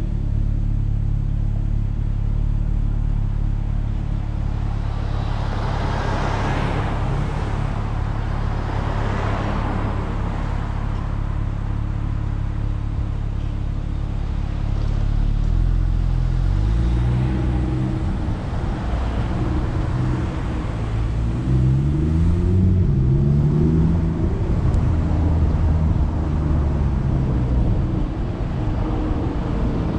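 Car engine running low and steady with road noise. About halfway through, the engine note rises three times in a row as the car pulls away and accelerates through the gears. Two short swells of rushing noise come in the first third.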